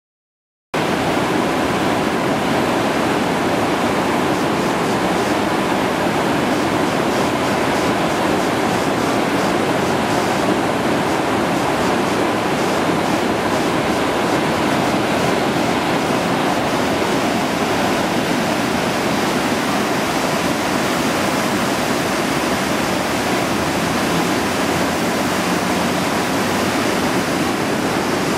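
Whitewater rapids rushing over and between rocks in a river, a steady loud roar of water that starts abruptly under a second in.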